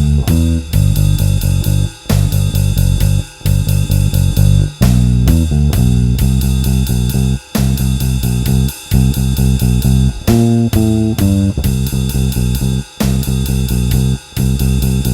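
Electric bass with a G+B Toaster neck pickup and flatwound strings, played with no compressor, picking a blues-rock bass line over a drum beat with steady cymbal ticks. The bass line has short breaks between phrases.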